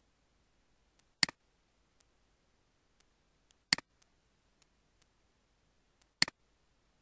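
Three sharp computer mouse-button clicks about two and a half seconds apart, each a quick press-and-release double click, with faint ticks in between.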